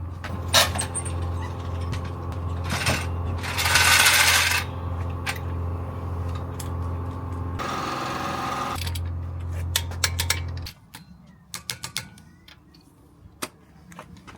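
A steady motor hum with two loud bursts of rattling, as an impact wrench does up the wheel nuts on a refitted car wheel. The hum stops about ten seconds in and a few sharp metallic clicks follow.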